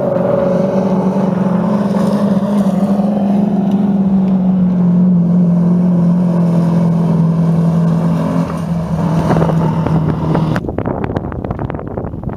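Soviet GAZ racing trucks' engines running hard across a dirt track, a loud steady drone that sinks slowly in pitch. About two seconds before the end the engine sound cuts off abruptly and gusty wind on the microphone takes over.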